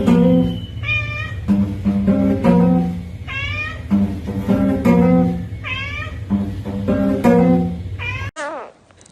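Music with a repeating plucked-string pattern, with wavering meow cries laid over it every couple of seconds. Near the end the music cuts off and a cat meows once, the cry falling in pitch.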